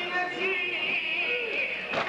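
A man chanting a Shia Muharram lament (latmiya) in a long, wavering melismatic line.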